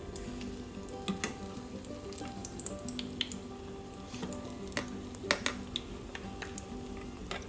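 Gram-flour-battered vegetable bondas deep-frying in hot oil: a steady sizzle with scattered sharp crackles and pops, the loudest a little after five seconds in.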